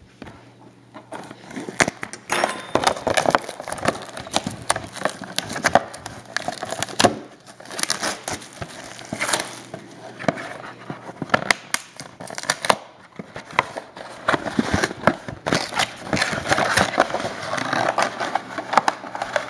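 A sealed trading-card box being opened by hand: wrapping crinkling and tearing and cardboard handled, a dense run of irregular crackles and clicks.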